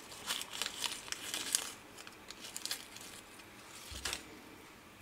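Small clear plastic zip-lock bag crinkling as fingers handle it, in quick crisp rustles, most of them in the first two seconds. A soft bump about four seconds in.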